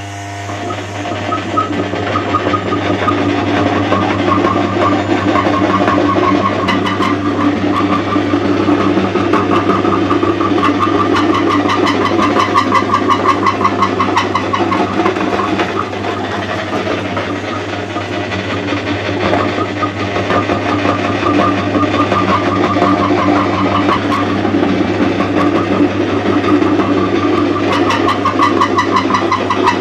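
Electric meat grinder running steadily, its auger crushing bars of soap into crumbs, a crackling grind over a constant motor hum.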